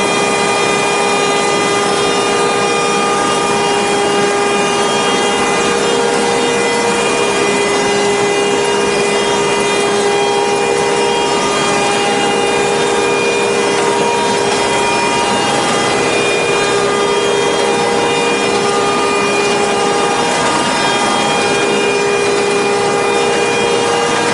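Adult-diaper converting machine running at production speed: a loud, steady mechanical rushing of rollers and cutters with several steady whines layered over it.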